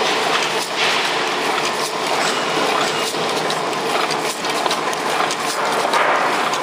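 Chocolate bunch-wrapping machine running, a steady mechanical clatter of rapid small clicks.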